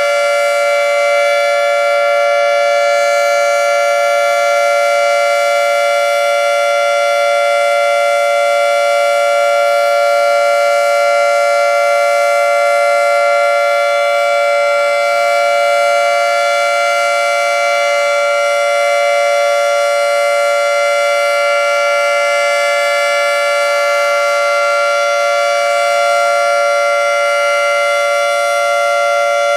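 Federal Signal 2T22A dual-tone electromechanical outdoor warning siren sounding a steady alert during its test. It holds two pitches together as one chord, without rising or falling.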